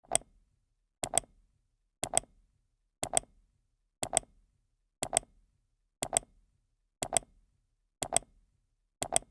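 A clock-like ticking sound effect: a sharp double click repeated once a second, ten times, with dead silence between the ticks.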